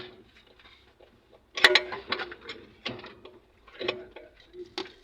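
Metal clinks and knocks of hard parts being handled and moved: a sharp knock about a second and a half in with a short clatter after it, then a few lighter knocks.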